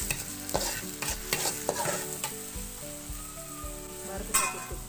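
A metal spatula scrapes and stirs in a small wok while garlic fries in sizzling oil, cooking down until soft. The scraping strokes repeat several times a second early on, thin out in the middle, and a louder scrape comes near the end.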